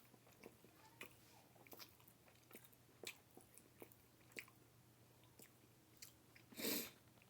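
A person chewing food with faint, irregular mouth clicks, and one louder, breathy sound near the end.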